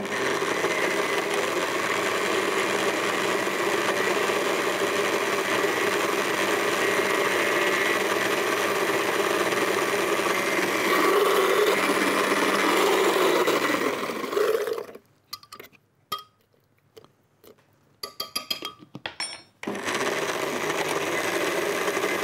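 Electric countertop blender running steadily as it purées a green chutney. Its motor winds down and stops about fifteen seconds in, a few clicks follow, and it starts up again near the end.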